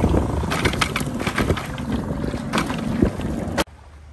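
Choppy lake waves splashing and slapping against a canoe's hull, with wind buffeting the microphone. The sound cuts off abruptly about three and a half seconds in, leaving only quiet ambience.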